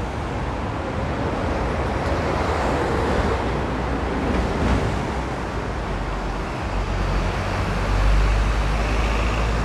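City street traffic: a steady wash of passing road vehicles, with a deep engine rumble swelling over the last few seconds.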